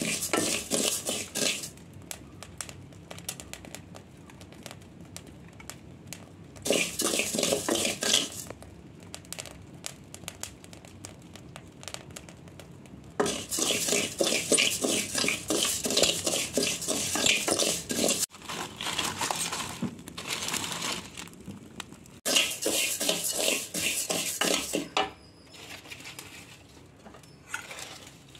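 Wooden spatula stirring dry rice being roasted brown in a metal pot, the grains rustling and the spatula scraping the pot in several bouts of stirring, the longest about seven seconds, with quieter gaps between.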